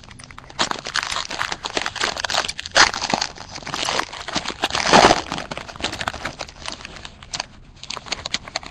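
Foil trading-card pack wrapper crinkling and tearing as it is ripped open by hand, in irregular crackles, loudest about five seconds in.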